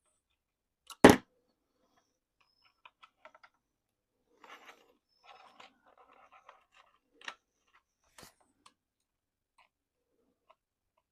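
Small hard parts and tools being handled while working on a small RC truck: a loud sharp knock about a second in, then scattered light clicks, scrapes and rustles, with two more sharp clicks later.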